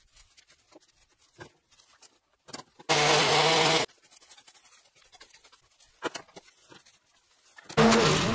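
Honda walk-behind lawnmower's single-cylinder four-stroke engine running, heard in two short stretches: for about a second around three seconds in, and again starting near the end. In between it is nearly quiet, with faint scattered clicks and rustles.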